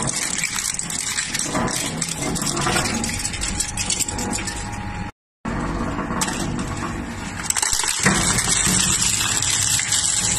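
Industrial crusher machine running and grinding material, a dense rattling, cracking noise over a low machine hum. The sound drops out completely for a moment about five seconds in. It then comes back, and grows louder and steadier near the end.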